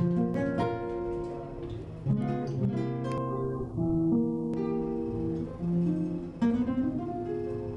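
Solo acoustic guitar playing a tango introduction: single plucked notes with strummed chords in between, before the voice comes in.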